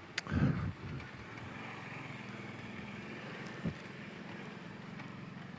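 Kawasaki Brute Force 750 ATV's V-twin engine running steadily at trail speed. There is a short thump just after the start and a single knock a little past halfway.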